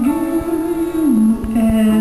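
Live male pop vocal holding a long note that steps down to a lower held note about a second in, over live band accompaniment.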